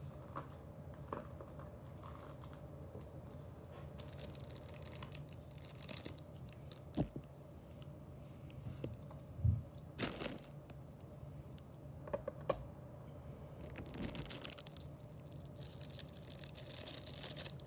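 Packaging being handled: plastic and cardboard crinkling with scattered clicks and light knocks, over a steady low hum.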